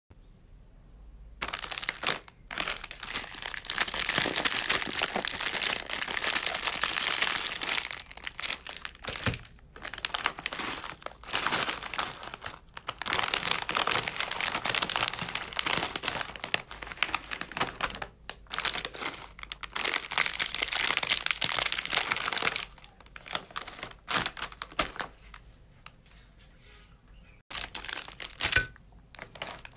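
Plastic snack bags crinkling loudly as a hand squeezes and crushes them, breaking up the crispy snacks inside. The crinkling comes in long dense stretches with short pauses, thinning to scattered crackles over the last several seconds.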